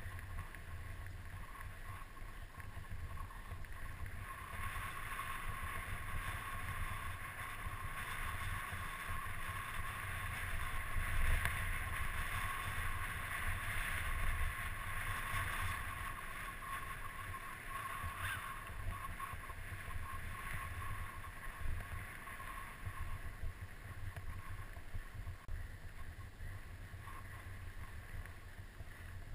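Mountain bike riding along a dirt singletrack: wind buffeting the helmet camera's microphone over the tyres rolling on the trail, with a steady whir throughout.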